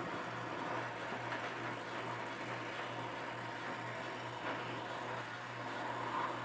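Oxyacetylene torch flame hissing steadily while it heats a cracked cast-iron tailstock casting for a brazed repair, with a low steady hum underneath.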